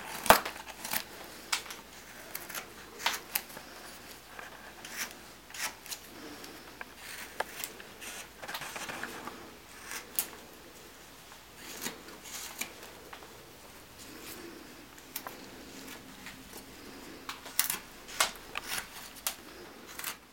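Hand carving knife cutting into a small block of wood: crisp, irregular snicks as the blade slices off chips, with softer paring strokes between them. The loudest cuts come right at the start and again near the end.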